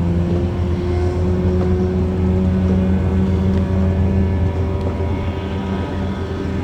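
Boat engine running steadily: a loud low hum with a few higher tones that drift slightly in pitch.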